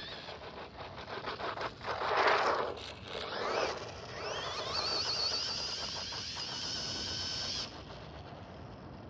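WLToys L202 Pro brushless RC buggy's electric motor whining as it drives past on asphalt. Two loud raspy bursts of the tyres scrubbing come around two and three and a half seconds in. Then the whine rises in pitch as it accelerates and stays high until it stops abruptly about a second before the end.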